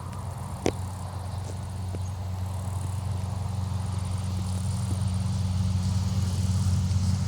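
A vehicle engine running with a steady low hum that grows slowly louder, with crickets chirring faintly in the background. A single sharp click sounds under a second in.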